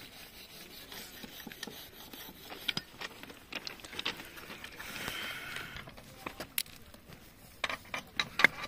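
Hands packing and smoothing damp luting sand around the mould of a thermite rail weld: soft rubbing and scraping, with scattered sharp clicks that come thicker near the end.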